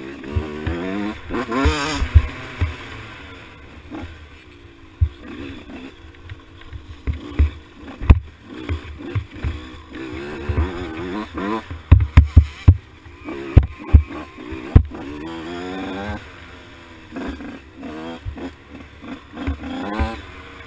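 Two-stroke KTM 85 SX dirt bike engine with a big bore kit, revving up and down in pitch as it rides a rough grassy trail. Repeated sharp knocks and thumps come through, loudest in a cluster past the middle.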